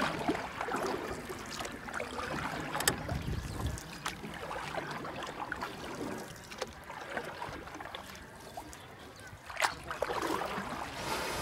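Outdoor ambience with wind rumbling on the microphone and a few sharp handling clicks.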